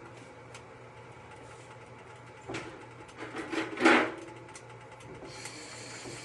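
Kitchen handling noises: a few short knocks and rubs, the loudest about four seconds in, then a faint steady hiss near the end.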